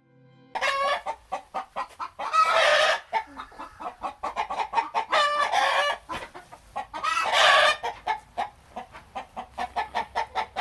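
Chickens clucking in quick succession, with three louder, longer calls about two and a half seconds apart.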